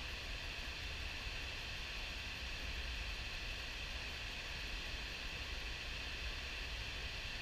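River water pouring over a diversion dam's spillway at high flow into churning whitewater: a steady, unbroken rush with a low rumble underneath.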